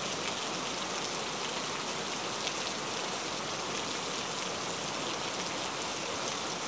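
Steady, even hiss of noise with faint fine crackles through it, cutting off suddenly just after the end.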